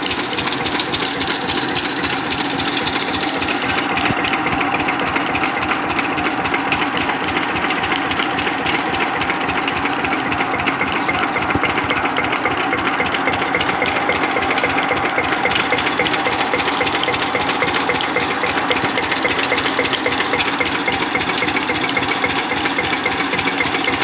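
Single-cylinder stationary diesel engine with twin flywheels running steadily under load, belt-driving a well water pump; its firing beats come fast and even.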